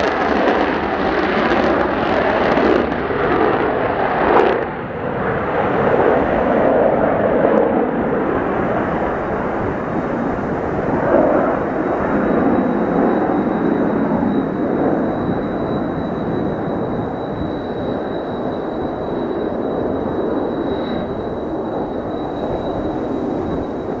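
Mitsubishi F-2 fighter's F110 turbofan in afterburner on the takeoff run and climb-out: a loud, steady jet roar. Its high hiss drops away about four seconds in, and the roar then slowly fades as the jet climbs. Strong wind is buffeting the microphone.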